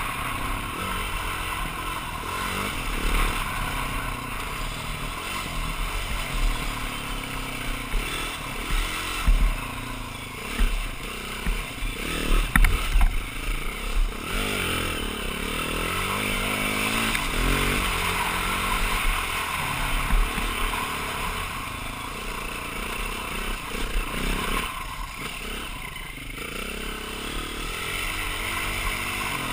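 BMW G450X single-cylinder dual-sport motorcycle engine running under way, its pitch rising and falling as the throttle is worked. A run of sharp knocks and clatter comes around the middle.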